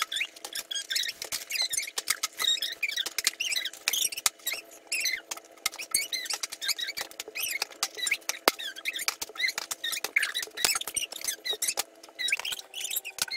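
Fast-forwarded audio: a child's voice sped up into high, chipmunk-like squeaks, mixed with rapid clicks of cardboard boxes being handled, over a steady low hum.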